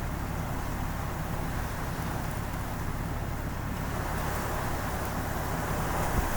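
Vehicle running with a steady low rumble, and a hiss that grows louder from about halfway through.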